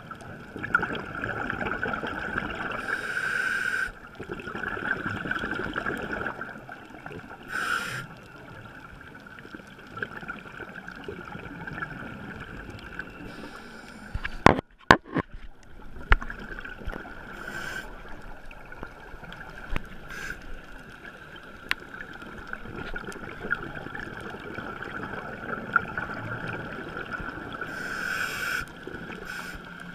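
Underwater sound of scuba diving: long bubbling bursts of regulator exhalation in the first few seconds and again briefly near 8 s and near the end, over a steady high hum. A few sharp knocks come around the middle.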